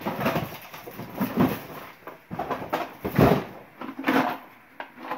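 Rummaging by hand through a box of toys and odds and ends: irregular rustling, scraping and knocking as items are picked up and moved about.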